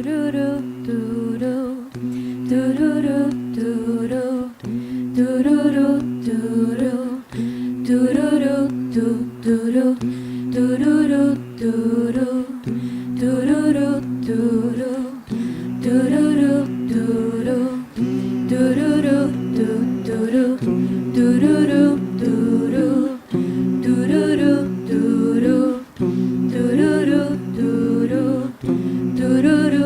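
A cappella vocal group humming sustained chords in harmony, with a wordless melody line moving above them. The phrases break off and re-enter every two to three seconds.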